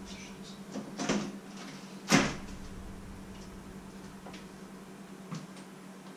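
Casement window being unlatched and swung open: a short scrape about a second in, then a sharp clunk about two seconds in, followed by a few faint clicks.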